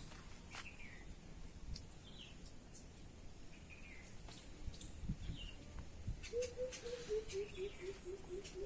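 Faint outdoor ambience of scattered bird chirps over a steady high-pitched insect drone; about six seconds in, a rapid series of low pulsed calls, about four or five a second, begins and keeps going.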